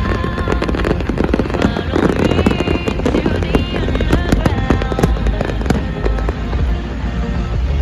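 Firecrackers crackling in rapid, irregular cracks over music with wavering melodic lines and a low rumble.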